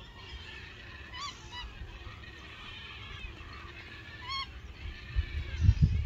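A flock of geese honking: a constant chorus of distant calls, with clearer single honks about a second in and again around four seconds in. Near the end, low rumbling buffets on the microphone cover the calls.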